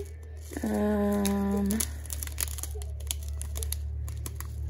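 Small clear plastic bags of square resin diamond-painting drills crinkling and crackling as fingers handle them. About half a second in, a voice holds one flat-pitched vocal sound for about a second.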